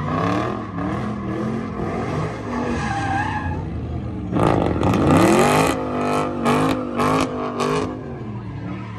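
Dodge Charger doing donuts: engine revving hard with the rear tyres spinning and squealing. About halfway through the revs dip and climb again, then come several short sharp bursts of revving.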